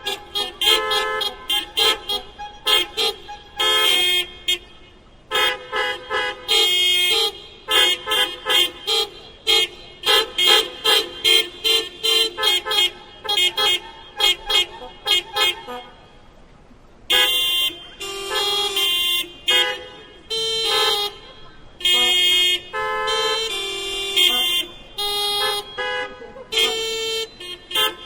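Many car horns playing a hocket, the cars sounding in alternation so that short honks of different pitches interlock in a quick rhythm. About sixteen seconds in they break off briefly, then resume with longer held honks.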